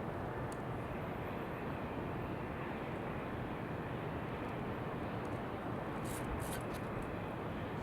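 Steady outdoor wind noise blended with white noise, with a few short, sharp high clicks around six seconds in.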